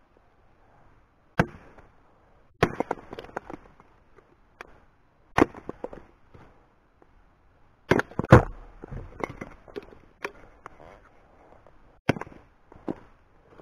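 Hatchet splitting kindling on a wooden chopping block: about seven sharp chops at irregular intervals, the loudest about eight seconds in, with smaller knocks and clatter of wood after several of them.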